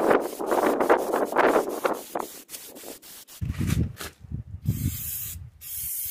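Rubbing and scraping for the first two seconds or so, then an aerosol spray can hissing in two bursts, the second starting near the end, as black rust-proofing coating goes onto the van's rocker panel.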